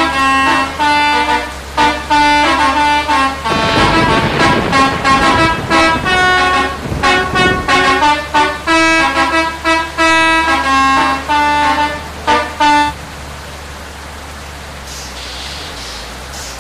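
Bus telolet horn, a set of musical air horns on a bus, playing a quick melody of short, changing notes, with a low rumble under it for a few seconds in the middle. The horn stops about 13 seconds in, leaving a steady hiss of rain.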